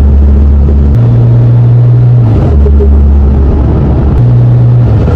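Cummins 5.9-litre inline-six turbo-diesel engine running loud under driving, its note stepping down and back up between two pitches several times, with turbo and intake noise through an S&B cold air intake.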